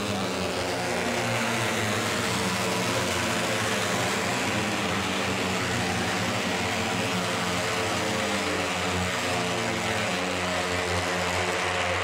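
A pack of Moto3 racing motorcycles running at high revs on the circuit, their 250 cc single-cylinder four-stroke engines blending into a steady, unbroken drone.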